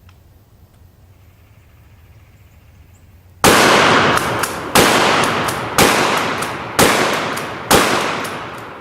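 Winchester 1300 pump-action shotgun, its barrel cut down to 22 inches, fired five times about a second apart, starting a few seconds in. Each shot rings out and dies away, and the last fades out near the end.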